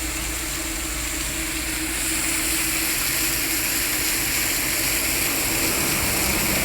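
Steady travel noise of a moving vehicle on a highway: a low rumble with a steady hum, and a rushing hiss that grows louder about two seconds in.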